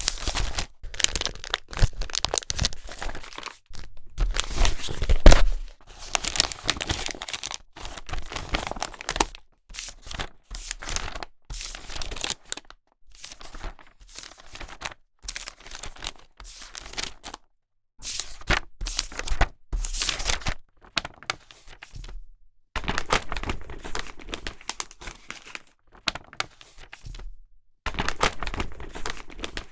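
Newspaper pages being handled: a string of irregular papery rustles, crinkles and tears with short pauses between them, the loudest about five seconds in.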